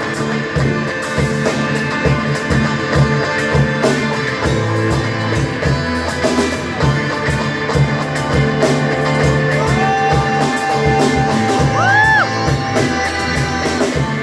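Live rock band playing an instrumental passage with electric guitar, bass and drums. Near the end a held note bends up and back down.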